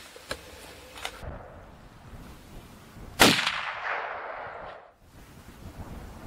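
A single gunshot about three seconds in: a sharp, loud crack whose echo rolls on for about a second and a half, then stops abruptly. Two faint clicks come earlier.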